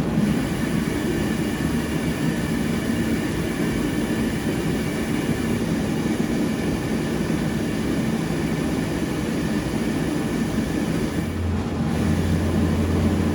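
Propane ribbon-burner forge running steadily on its centre burner, its electric blower fan and gas flame making an even noise. A low hum joins about eleven seconds in.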